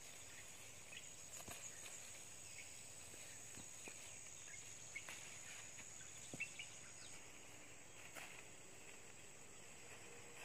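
Faint garden ambience: a steady high-pitched insect drone with occasional short chirps. Over it come scattered soft clicks and rustles of leafy amaranth (local spinach) stems being picked by hand.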